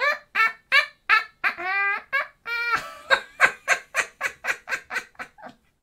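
A man voicing a puppet monkey's laugh: a long string of short, high-pitched 'ha' bursts that come faster after the first few and fade away near the end.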